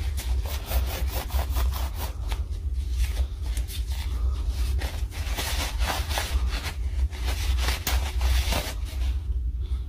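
Irregular hand rubbing and scraping strokes on the impact wrench's motor parts, over a steady low hum.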